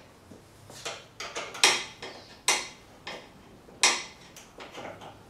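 Metal bicycle parts and bolts clinking and knocking together as a seat brace is fitted to a recumbent bike frame: a string of irregular sharp clinks with short ringing tails, the loudest about a second and a half in and again near four seconds.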